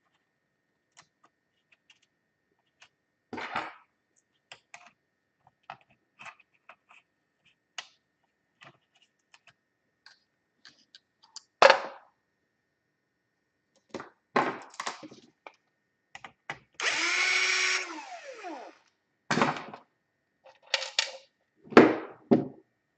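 Laptop disassembly handling: scattered small clicks and knocks of plastic and metal parts, with one sharp knock about twelve seconds in. Late on, a small power tool whirs for under two seconds and its pitch drops as it stops.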